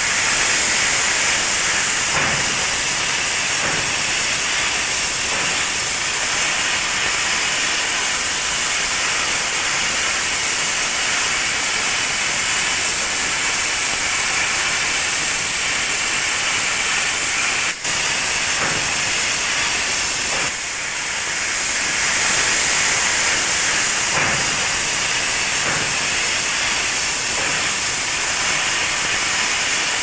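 Steam locomotive letting off steam: a steady, continuous hiss with a momentary break a little past the middle.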